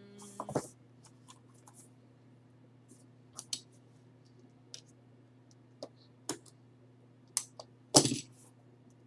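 Hard plastic card slabs clicking and tapping against each other as a taped stack is handled, in scattered single ticks with the loudest knock about eight seconds in. A faint steady low hum runs underneath.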